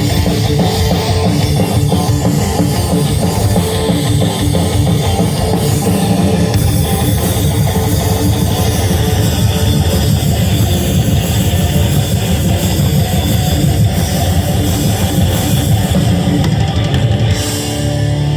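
Heavy rock band playing an instrumental passage: distorted electric guitars over a drum kit with a dense, driving beat, loud throughout.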